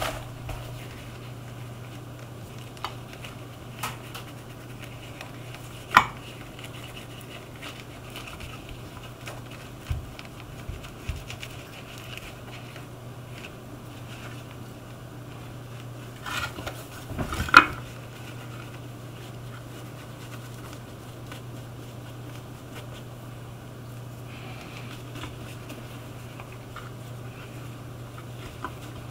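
Quiet handling noises during shoe repair work: a few scattered light knocks and clicks, a sharper one about six seconds in and a short cluster a little past halfway, over a steady low hum.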